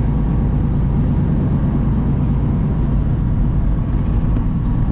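Steady rumble of a semi truck driving along the highway, heard from inside the cab: diesel engine drone mixed with tyre and road noise, unchanging throughout.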